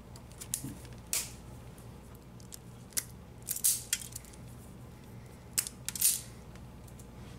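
Wire cutters snipping and handling a length of insulated hookup wire: several sharp, short snips and clicks, the loudest about halfway through and again near the end.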